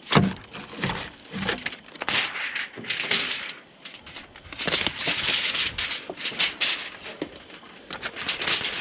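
Aluminium foil tape being handled and pressed onto a metal stove pipe: irregular crinkling and rustling bursts with scattered small clicks, and a knock just after the start.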